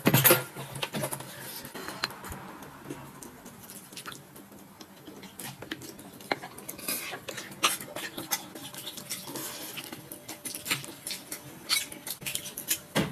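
Irregular light clinks and taps of dishes and utensils, with a louder knock right at the start.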